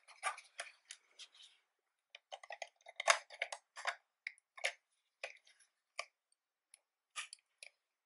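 Handling clicks and scrapes as an ImmersionRC Rapidfire receiver module in a red plastic case is pushed and seated into the Digidapter module bay on DJI FPV goggles. An irregular string of short, sharp clicks, loudest about three seconds in.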